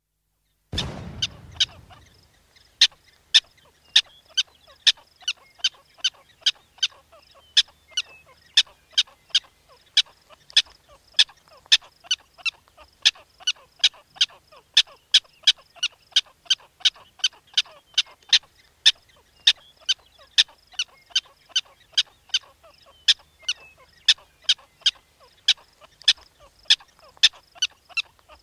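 A cartoon 'boom' sound effect about a second in, then black-tailed prairie dog alarm barks: short, high-pitched chirping calls repeated about twice a second.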